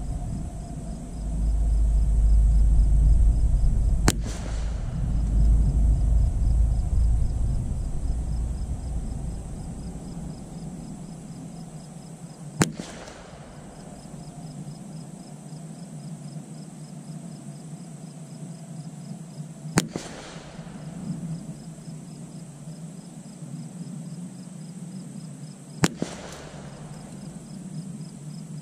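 Four single shots from a CZ 457 Varmint Pro .22 LR bolt-action rifle firing Eley CMP ammunition, spaced about six to eight seconds apart. Each is a sharp crack with a short echo.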